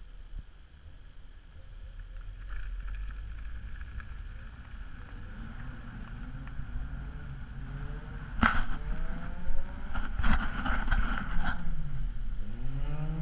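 Volvo car engine running low, then revved repeatedly from about halfway through, its pitch rising and falling as the car slides on snow. A sharp crack comes about two-thirds of the way in, followed by bursts of hiss.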